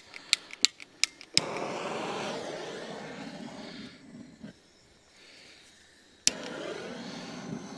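Butane torch lighter: sharp clicks, then the jet flame hissing steadily for about three seconds before it stops. A second click about six seconds in relights it into a steady hiss.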